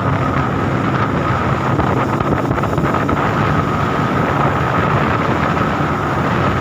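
Small boat's engine running steadily at cruising speed, a low drone with a steady high whine over it, mixed with wind rushing over the microphone.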